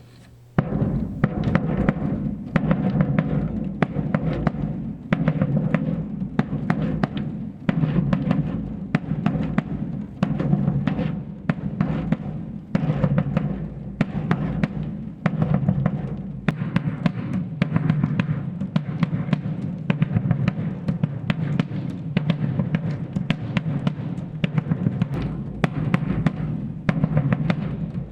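Surdo bass drum played solo in a steady, repeating rhythmic pattern of deep booming strokes.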